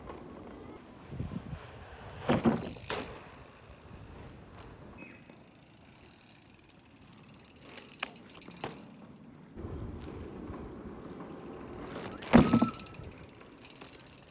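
Mountain bike being ridden, with sharp clunks and rattles from the bike several times: a pair a couple of seconds in, another pair midway, and the loudest near the end, over a low steady rumble.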